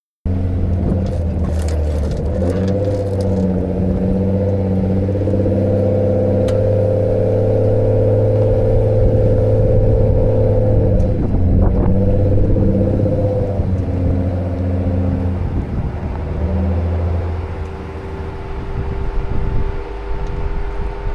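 Jeep Gladiator's engine running steadily as the truck drives along a dirt track, with some knocks and rattles. The engine sound eases off a few seconds before the end.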